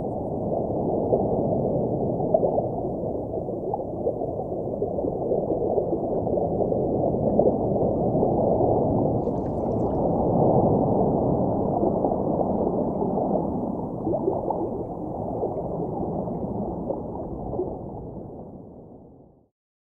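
Underwater-style water ambience: a steady, muffled rush and gurgle of water, fading out near the end.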